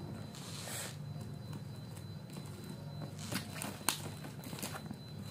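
Hands handling a cardboard box wrapped in bubble wrap: soft rustling of plastic and a few sharp clicks and taps, the sharpest about four seconds in.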